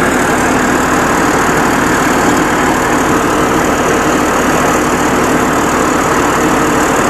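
Diesel engine of a rice combine harvester running steadily at a constant speed.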